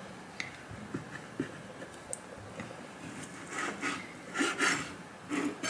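Chef's knife cutting hot dogs lengthwise on a plastic cutting board: a few light taps, then short scraping strokes of the blade through the sausage and across the board in the second half.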